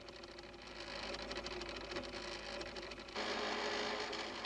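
Lie-detector's pen recorder running with a steady mechanical whirr; it gets louder and fuller about three seconds in.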